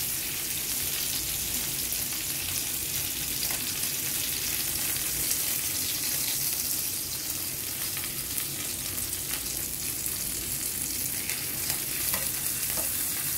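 Red snapper frying in hot cooking oil in a pan: a steady sizzle with scattered small crackles.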